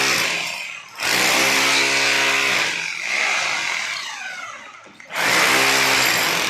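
Electric angle grinder switched on and off in short bursts. It runs steadily, is released and winds down with a falling whine, then is started again; this happens twice, and the longest wind-down is in the middle.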